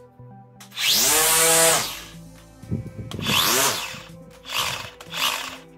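Battery-powered Worx 40V string trimmer's electric motor spinning up to a high whine and winding down again, four times: one long run about a second in, a second run, then two short blips near the end. Steady background music runs underneath.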